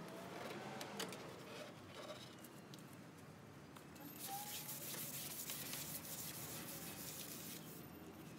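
Hand sanding with a sanding block over a stripped teak tabletop (150-grit stage): a steady scratchy hiss that starts about four seconds in, lasts some three seconds, then stops. A few light taps come before it.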